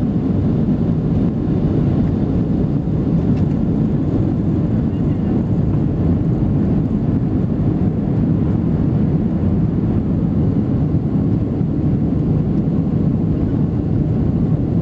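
Steady, low cabin rumble of a Boeing 737-700 with CFM56-7B engines, the engines and airflow heard from inside the passenger cabin.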